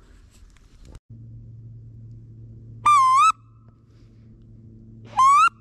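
Wood duck call blown twice, each a short, loud squealing whistle that rises in pitch at the end, the second about two seconds after the first. A faint steady low hum runs underneath from about a second in.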